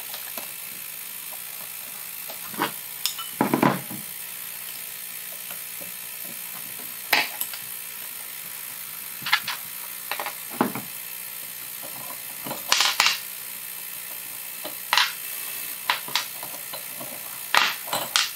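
Scattered light metal clicks and clinks of a hex key and small steel parts of a mini-lathe tailstock being worked and set down on a wooden bench, a dozen or so short knocks, some in quick pairs, over a steady faint hiss.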